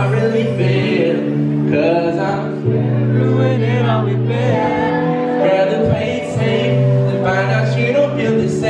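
Live R&B song: a man singing lead with backing voices over held keyboard chords and deep bass notes that change every couple of seconds.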